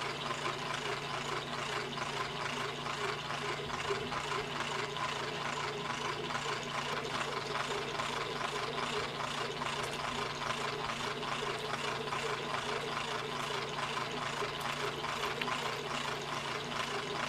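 Electric drill running continuously at a steady speed, a constant motor hum with a fast, even ticking over it.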